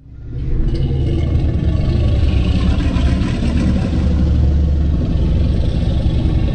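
Custom creature sound effect for the Tyrannosuchus: a long, deep, rumbling roar that starts suddenly and holds steady for several seconds.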